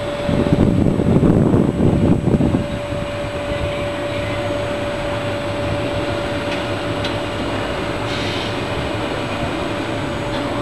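Wind rumbling on the microphone in the first two and a half seconds, then a steady outdoor noise with a thin constant whine running through it.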